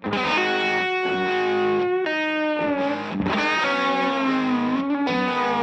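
Electric guitar played through an SSD 92 Drive overdrive pedal: a distorted lead phrase of held notes that bend up and down in pitch, with short breaks between notes.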